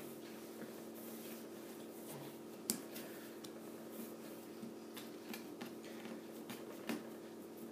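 Hands rolling a log of cookie dough on a countertop: faint rubbing and soft taps, with a sharp click a little under three seconds in and another near the end, over a steady low hum.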